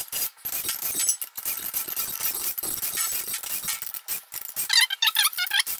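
Ratchet wrench with a 10 mm socket clicking rapidly while loosening the beadlock-ring nuts on an aluminium UTV wheel, with metallic clinks. A brief high wavering chirp comes about five seconds in.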